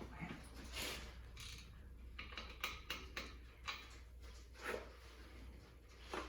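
Faint scattered clicks and light knocks, a few short taps spread over several seconds, over a low steady hum.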